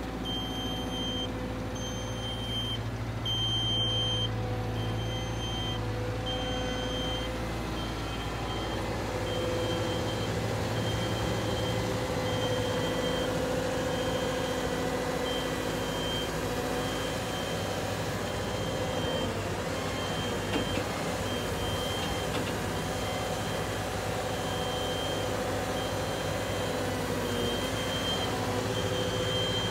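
CAT M316F wheeled excavator's diesel engine and hydraulics running as the machine works, a little louder from about nine seconds in, with its warning alarm beeping steadily about once a second while the upper structure swings.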